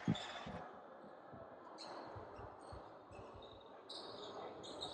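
A basketball bounces on the hardwood gym floor right at the start. After that there is faint large-gym ambience: scattered distant ball bounces, a low murmur and a few short high squeaks.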